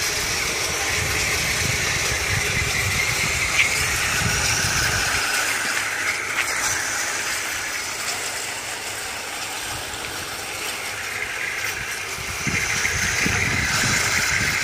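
Small 3D-printed RC tank driving, with a steady whine from its motors and gears and a rattle from its printed plastic tracks running over the ground.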